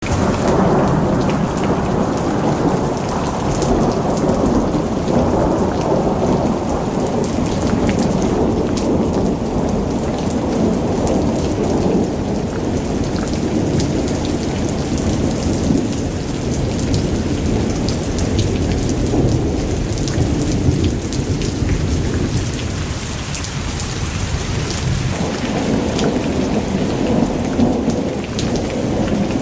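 Heavy rain falling, with a deep low rumble that swells and eases throughout and scattered sharp drop ticks above it.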